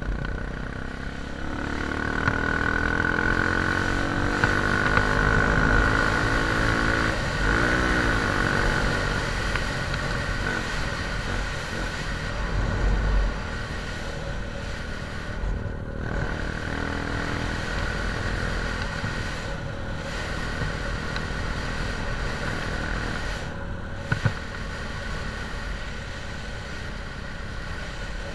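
Motorcycle engine accelerating, its pitch climbing over the first several seconds, dipping and rising again briefly about eight seconds in, then running steadily at cruising speed. Steady wind and road noise lie underneath.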